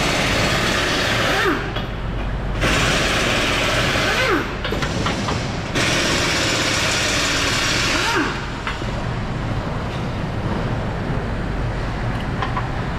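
A power tool running in three bursts of about two seconds each, with short pauses between, then a steadier lower background noise.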